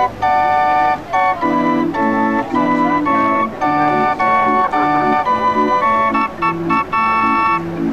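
Hand-cranked barrel organ (street organ) playing a tune in held, piping notes, with a rhythmic bass accompaniment that comes in about one and a half seconds in.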